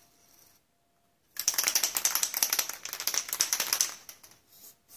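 Aerosol can of white lithium grease spraying through its straw nozzle onto a drum-brake backing plate: a loud hiss with a rapid sputtering crackle. It starts about a second and a half in and stops near four seconds.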